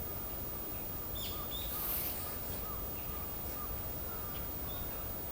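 Female northern goshawk calling: a string of short, faint, arched notes at irregular spacing. A brief burst of hissing noise comes about a second and a half in.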